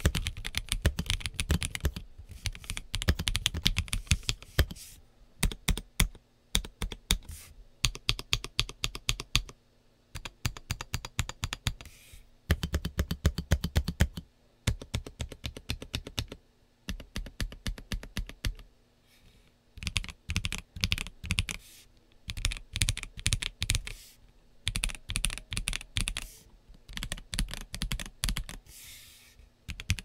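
Typing on a GMK67 mechanical keyboard with Gateron Yellow Pro linear switches and NuPhy Halo KOP-profile PBT keycaps: quick runs of keystrokes broken by brief pauses every few seconds.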